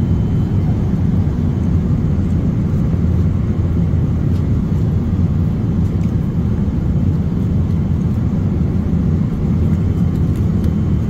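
Airliner cabin noise in flight: the steady low drone of the jet engines and airflow, with a few faint light ticks.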